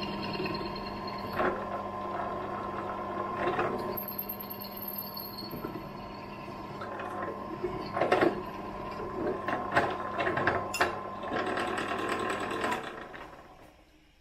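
Bench pillar drill running, its bit cutting into a metal bracket clamped in the vise, with a few sharp metallic clatters. The motor is switched off near the end and winds down.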